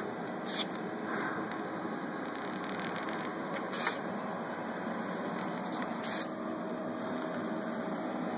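Universal Robots UR5 collaborative robot arm moving through an automated pick-and-place cycle, its joint motors giving a steady hum. Three brief high clicks sound over it, spread through the cycle.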